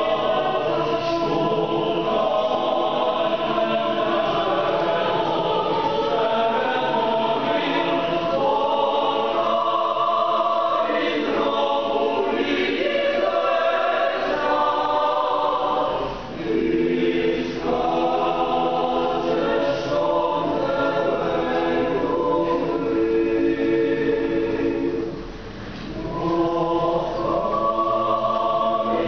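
Mixed choir of men's and women's voices singing a cappella in sustained, several-part chords, under a conductor. The sound dips briefly between phrases about sixteen seconds in and again, a little longer, about twenty-five seconds in.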